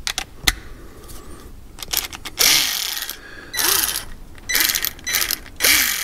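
Ratchet wrench driving in a seat belt anchor bolt: a few clicks, then four short bursts of ratcheting, each about half a second long.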